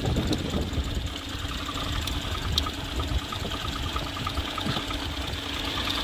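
Car engine idling steadily, running again now that the shorted 5-volt reference wire of the fuel pressure sensor has been cut.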